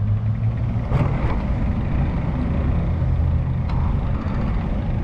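A motor vehicle running with a steady low rumble, with a few short knocks or clicks over it.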